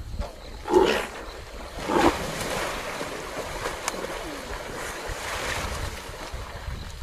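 Water splashing and churning as a large antelope thrashes in a river during an attack, with two louder splashes about a second in and at two seconds.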